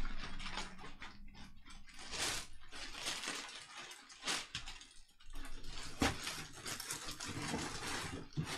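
Irregular rustling and crinkling, with short sharp clicks and ticks, from trading-card packaging and cards being handled on a table.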